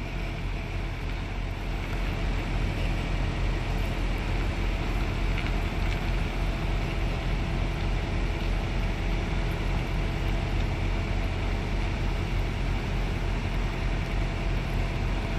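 Semi-truck's diesel engine running steadily at low speed while the tractor slowly backs and pivots its trailer, a low even hum with no revving.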